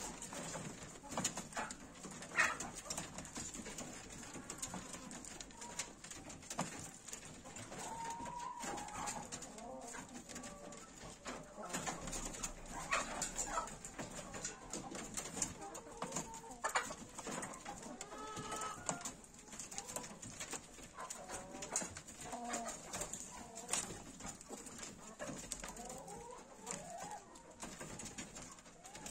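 Birds cooing and calling in short repeated calls, with scattered knocks and scuffles from rabbits moving about on a wire-floored hutch.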